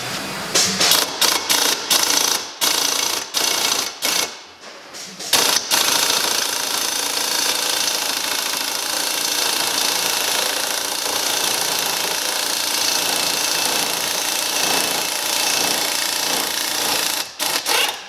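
Pneumatic butterfly impact wrench hammering on a puller's forcing screw, working a tight, seized pulley off a water pump shaft; the pulley comes off, but it is about all the small impact can do. Several short bursts at first, then about eleven seconds of continuous hammering that stops abruptly near the end.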